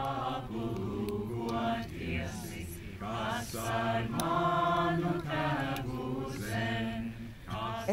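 A group of young voices singing a Latvian song together, unaccompanied, with long held notes.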